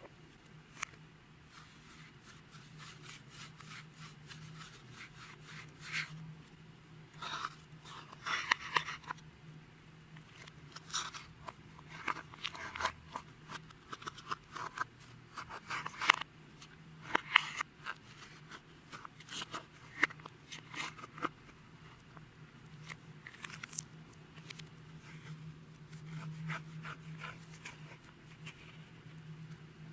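Clear slime being worked by hand, giving irregular sticky clicks and crackles, denser in the middle, over a faint steady low hum.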